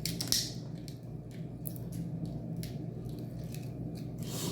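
Eating crab legs: a string of sharp cracks and clicks as the shells are broken and picked apart, with chewing. The loudest crack comes just after the start, over a steady low hum.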